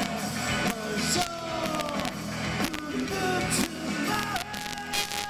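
A rock band playing live, with a male voice singing over drums and cymbal hits.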